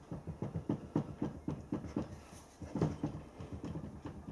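Light, rapid clicking and knocking of metal parts, about four or five a second, as the flywheel of a small vertical steam engine is worked round by hand on the end of its crankshaft, with a denser clatter about three seconds in.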